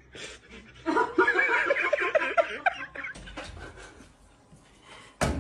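A person laughing in a run of quick rhythmic bursts, then a sudden loud bang near the end.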